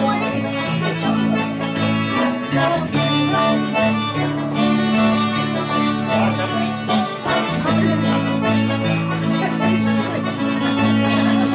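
Accordion playing a dance tune, with a steady, rhythmic bass line alternating between notes underneath the melody.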